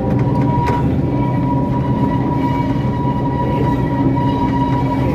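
760 mm narrow-gauge train running, heard from the locomotive cab: a steady engine drone and rail noise, with a steady high whine over them. There is one sharp click less than a second in.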